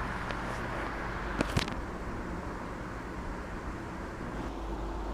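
Two quick sharp cracks close together about a second and a half in: joints of the spine cavitating under a chiropractic adjustment thrust. A steady hum and traffic-like noise run underneath.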